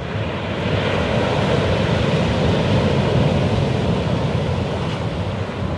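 Rough sea crashing onto the shore with wind blowing over the microphone: a steady rush that swells about a second in.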